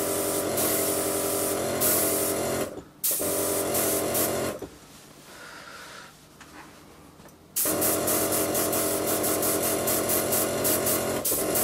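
Badger 200 airbrush spraying paint, its air hiss coming in bursts over the steady hum of the compressor feeding it. Both stop briefly about three seconds in, then again for about three seconds in the middle. After that the spray comes back in quick, even on-off pulses.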